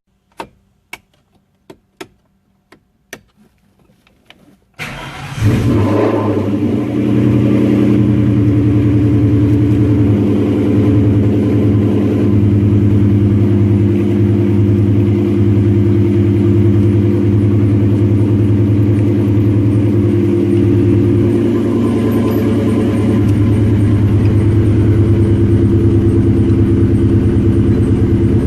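A few sharp clicks, then a Ford Mustang with a Borla ATAK cat-back exhaust cranks and starts about five seconds in and settles into a steady idle.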